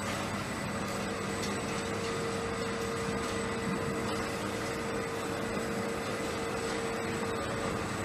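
Rail-mounted automatic feeding robot running with a steady mechanical hum. A higher steady whine joins about a second in and stops near the end.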